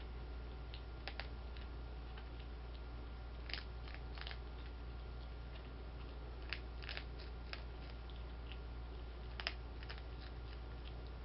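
A skunk crunching dry cat food kibble: irregular sharp crunches, some in quick pairs, over a steady low hum.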